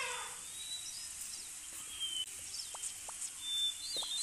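Outdoor nature ambience: a steady high hiss with scattered faint bird chirps and tweets and a few soft clicks, after the tail of a falling animal cry at the very start.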